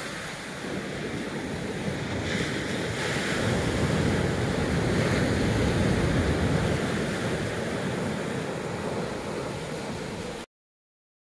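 Atlantic surf breaking and washing up a sandy beach, with wind buffeting the microphone. It swells louder through the middle and cuts off abruptly near the end.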